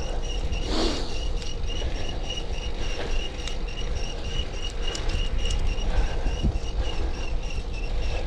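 Bicycle chain adjusted with all its slack taken out, chirping in a rapid, even rhythm of several high squeaks a second as the bike is ridden: the sign of a chain run too tight. Low wind rumble on the microphone lies under it, with a brief whoosh about a second in.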